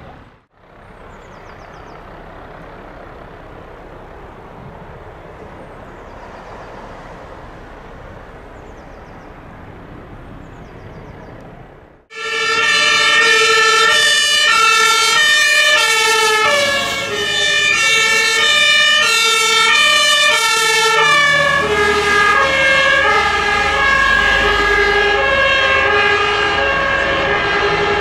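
Road traffic running steadily, then abruptly the two-tone sirens of several German fire engines, their alternating high-low notes overlapping out of step, with heavy diesel engines rumbling beneath them near the end.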